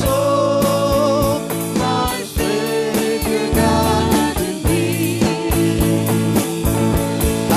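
Live worship music: a band with electric guitar and drum kit playing a song at a steady beat, with singing over it.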